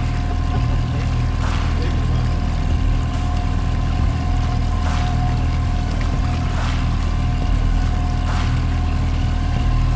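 Fishing boat's motor running steadily while trolling upstream, with a faint steady whine over its low drone. A short whoosh repeats about every second and a half to two seconds.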